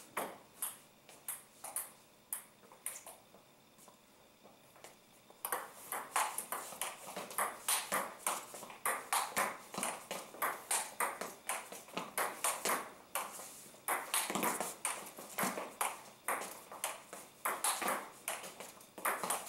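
Table tennis ball clicking off rubber paddles and the tabletop in a rally, several sharp hits a second. There is a lull of about three seconds around two seconds in, then steady back-and-forth play resumes.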